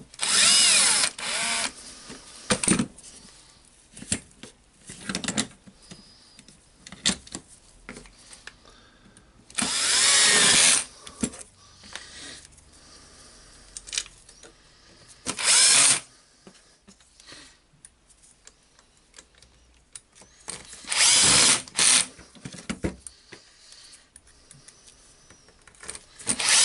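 Cordless drill-driver running in several short bursts of a second or so, its motor whine rising and falling as it drives screws into an angle grinder's gear housing. Small clicks of parts and screws being handled come between the bursts.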